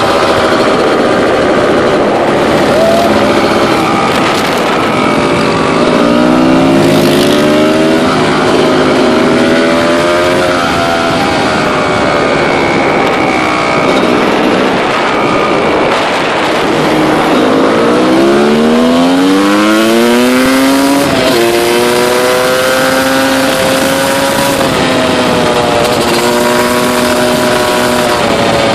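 A CR250-engined quad's two-stroke engine running at speed under load. The revs climb sharply twice, about six seconds in and again for a few seconds from about seventeen seconds, then hold fairly steady.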